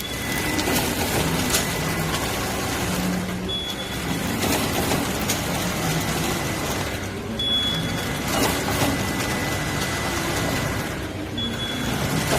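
Horizontal three-side-seal servo packaging machine of the box-motion type running continuously. Its cycle repeats about every four seconds, each time with a short high beep, among clicks and mechanical clatter over a steady high whine.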